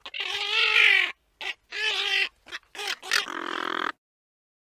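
A series of animal calls: one long pitched call of about a second, then several short calls and a rougher, buzzier call, before the sound cuts off near the end.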